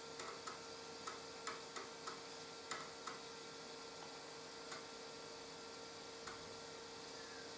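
Faint, irregular clicking from a retro PC's disk drive being read while hardware detection runs: about a dozen short ticks, unevenly spaced and bunched in the first three seconds, over a steady low hum.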